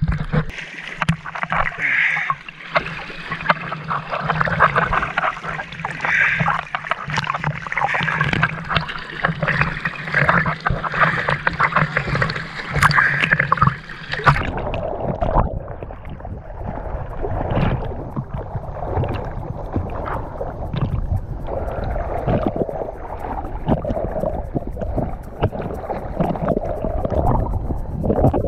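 Seawater sloshing and splashing against a waterproof action camera held at the surface during an open-water swim: a continuous choppy wash with many small splashes. About halfway through it turns abruptly duller and lower, as the camera sits lower in the water.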